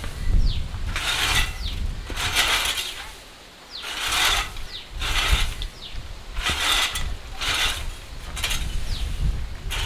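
Metal spring-tine fan rake scraping repeatedly over a dirt floor, dragging dry dung and straw, in strokes about a second apart with a short lull in the middle.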